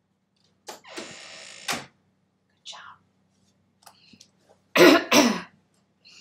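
A person coughs twice in quick succession near the end, the loudest sound here. About a second in there is a short breathy hiss, like a sharp breath.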